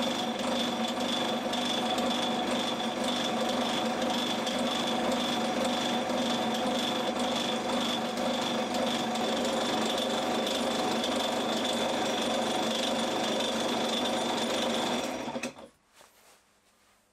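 Small metal lathe running steadily with its four-jaw chuck spinning while a journal is turned on a steel crankshaft blank made from a high-strength bolt; the machine is switched off about 15 seconds in and winds down quickly.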